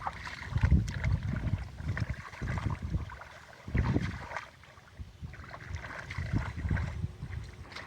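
Water sloshing with irregular low rumbling gusts of wind on the microphone and a few light knocks.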